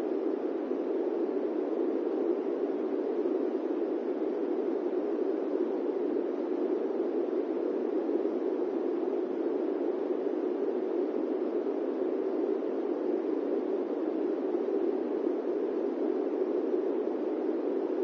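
Electric fan running with a steady, unchanging rushing noise, deeper than a hiss, with no rhythm or breaks.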